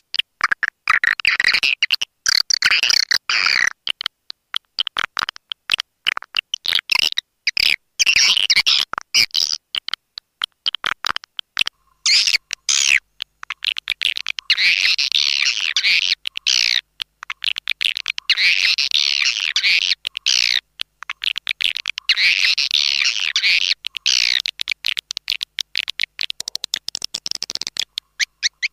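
Swiftlet lure call: many swiftlets twittering and chattering rapidly, in loud bursts of two or three seconds about five times, with sparser clicking chirps between them. It is a recorded call meant to attract swiftlets to a nesting house.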